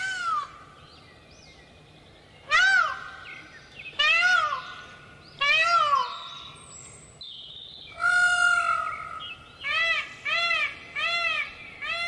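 Indian peafowl (peacock) giving loud calls, each rising and falling in pitch, about every second and a half; a longer, held call comes about two-thirds in, then a quick run of shorter calls, about two a second, near the end.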